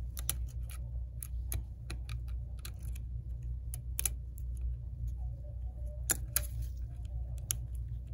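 Blue plastic pry tool clicking against the flex cable connectors inside an opened iPhone XS as they are pried loose: a run of small, irregular clicks, with sharper snaps about four and six seconds in, over a steady low hum.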